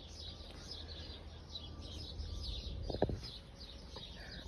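Birds chirping, with many short high chirps in quick succession, over a low steady rumble. A brief lower sound is heard about three seconds in.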